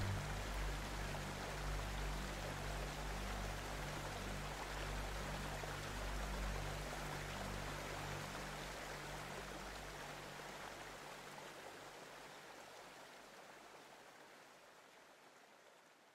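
Steady rush of flowing water with a low hum beneath it; the hum stops about two-thirds of the way through and the water sound fades out toward the end.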